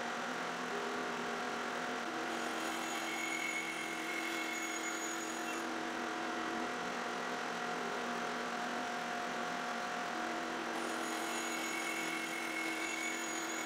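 Hammer N4400 band saw running steadily while the automated Accu-Slice feed slices thin discs off a segmented cylinder. A higher ringing tone comes in about two seconds in and again about eleven seconds in, each time for a few seconds, as a cut goes through.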